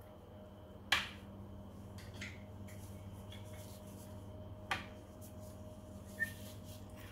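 Kitchenware being handled on a countertop: three sharp knocks, about a second in, again past the middle and once more near the end, with fainter clicks between. Under them runs a steady low hum.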